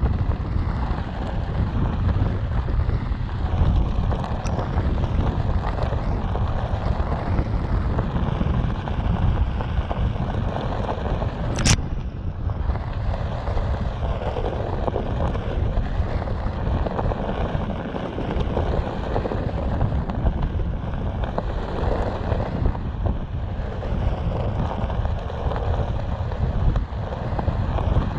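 Onewheel electric board's single tyre rolling over a desert gravel trail: a steady gravelly rumble, with wind on the camera microphone. One sharp click about twelve seconds in.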